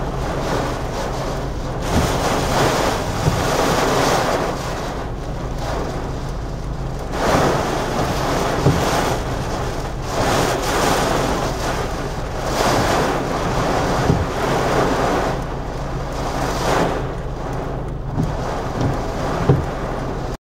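Hurricane Ida's gusting wind and rain buffeting a car, heard from inside the cabin. The rushing swells and eases every few seconds over the car's steady low hum, with a few sharp knocks.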